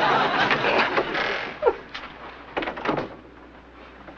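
Laugh-track laughter that dies away over the first second or so, then a door opening about two and a half seconds in.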